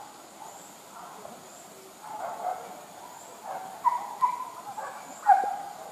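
Distant dogs barking and yelping a few times, short calls that begin about two seconds in, with the loudest near the end.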